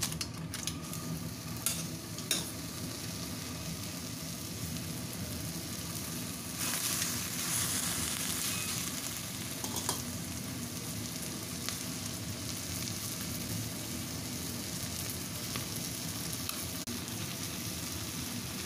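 Marinated chicken fillet sizzling on baking paper in a wok over a low gas flame, a steady frying hiss. It swells for a couple of seconds about a third of the way in, with a few sharp clicks in the first seconds.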